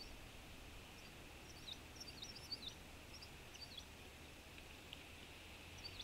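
Small songbirds calling: a quick run of short, high chirps about a second and a half in, and one more near the end, over a faint steady hiss.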